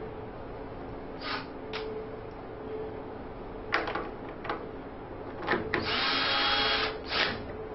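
Installing a condensate bulkhead fitting in a gas furnace cabinet: a series of short scrapes and clicks as the plastic parts are fitted, then a steady, noisy sound about a second long near the end, followed by one more scrape.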